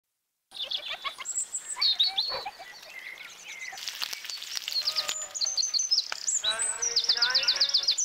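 Garden birds singing and chirping, many quick high notes and glides, ending in a fast trill.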